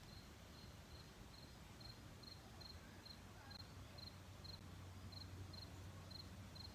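Faint cricket chirping: a short high chirp repeated evenly about two and a half times a second, over a low steady hum.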